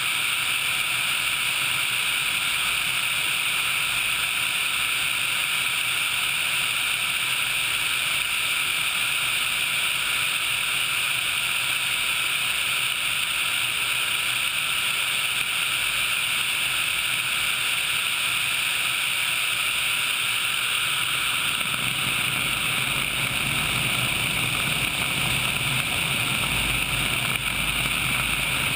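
Steady rush of wind and engine noise from an HH-60 Pave Hawk helicopter in flight, picked up by a camera mounted outside on the airframe. A deeper rumble joins about two-thirds of the way through.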